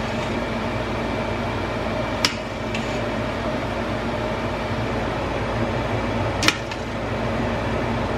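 A metal ladle clinks twice against the stainless-steel inner pot of an Instant Pot while the birria is stirred, over a steady fan-like hum.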